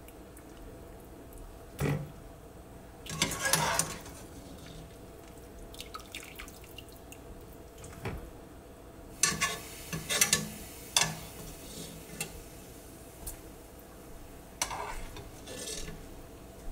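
Chicken broth dripping and splashing back into a stockpot from a wire spider skimmer as it is lifted out and dipped in again, with a few short clinks of the skimmer against the pot.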